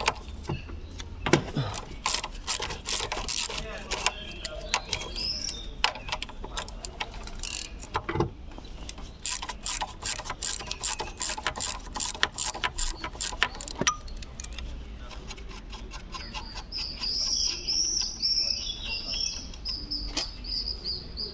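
Metal hand tools and parts clicking and clattering in irregular runs of rapid clicks and knocks, with a steady low hum underneath. High chirping comes in near the end.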